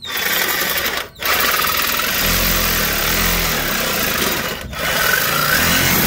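Reciprocating saw with a metal-cutting blade running hard, sawing through the old exhaust manifold's pipe to cut it off. The saw stops briefly about a second in and again near five seconds in, then starts again.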